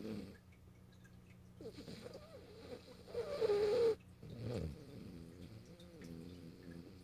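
French bulldog snoring in its sleep: uneven breaths, the loudest a wavering, whistling note about three seconds in, then a pulsing snore. A steady low hum runs underneath.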